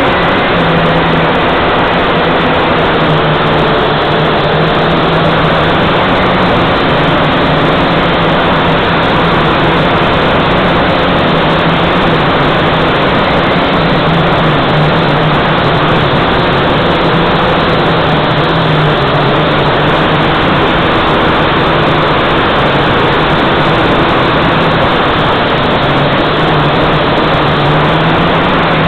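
Small drone's electric motors and propellers heard from its onboard camera: a loud, steady hum whose pitch wavers slightly, under a constant rushing noise.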